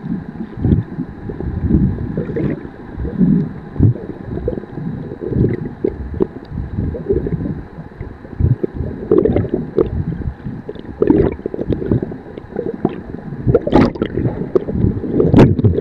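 Muffled underwater sloshing and gurgling as water moves around the camera, in irregular low surges, with a few sharper knocks or splashes near the end.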